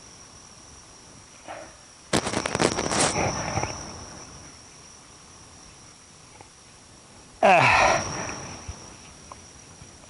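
Insects trill steadily on one high note while a shovel digs into grassy, root-filled soil. A second-long burst of rapid scraping and chopping comes about two seconds in, and another loud, brief sound near the end.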